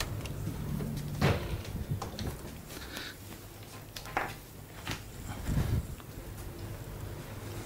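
Quiet room tone with a steady low hum, broken by a few short knocks and clicks, about one, four and five seconds in.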